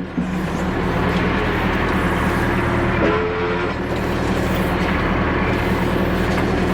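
Backhoe engine running steadily, with a brief higher whine about three seconds in.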